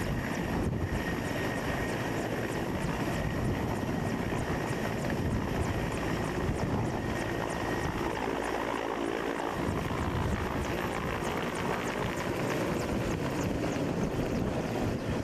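Mi-17 military transport helicopter flying low and passing overhead: the steady, rhythmic chop of its rotor blades over the turbine noise, with a thin high whine.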